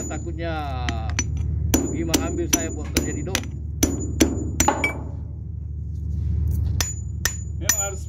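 A hammer striking a steel Kenter anchor-chain joining shackle in quick runs of blows, about three a second, each a sharp metallic clang with a high ring. The blows are knocking the shackle apart. The hammering breaks off for about two seconds in the middle, over a steady low hum.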